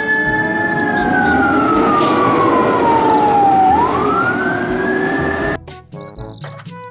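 Fire engine siren wailing as the truck drives past. The pitch falls slowly over about three seconds, rises again and holds, then cuts off suddenly about five and a half seconds in.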